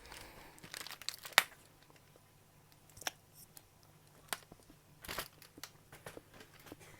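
Faint crinkling and scattered small clicks of packaging being handled, with one sharp click about a second and a half in, then a few sparse clicks.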